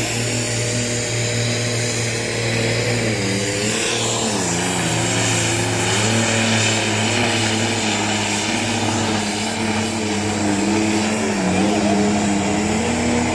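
Heavy diesel truck engine running at full load as it pulls a weight-transfer sled, its note wavering up and down and dipping briefly twice.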